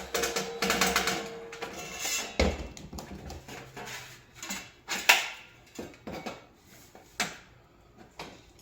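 Metal clatter from dismantling a stainless-steel coffee warmer: scraping and a ringing clang in the first two seconds, then a string of separate clanks and taps of metal parts and tools, the loudest about five seconds in.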